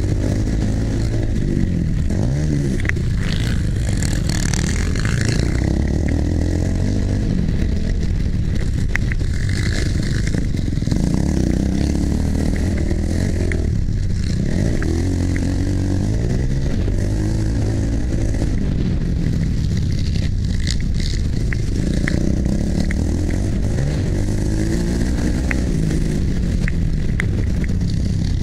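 Motocross dirt bike engine heard from on board while racing, revving up and dropping back every few seconds as the rider works the throttle and gears, with occasional sharp clicks.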